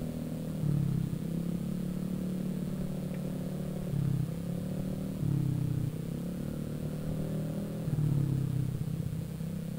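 Vespa automatic scooter's rebuilt single-cylinder engine, still in its run-in period, running under way. Its note swells and eases a few times, about a second in, near the middle and near the end, as the throttle is opened and closed.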